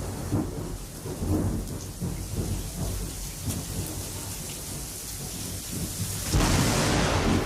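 Thunderstorm: low thunder rumbling over falling rain. About six seconds in the noise swells suddenly and gets louder.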